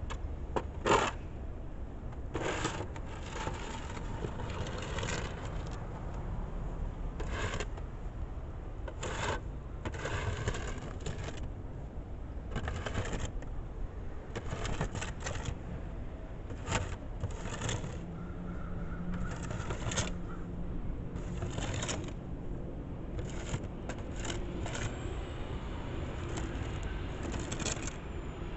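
Plastic snow shovel scraping snow off a concrete sidewalk in short strokes every second or two, the loudest a sharp knock about a second in, over a steady low rumble.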